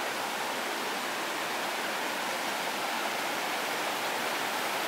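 Shallow rocky stream flowing steadily over stones and boulders in small rapids, an even rushing hiss.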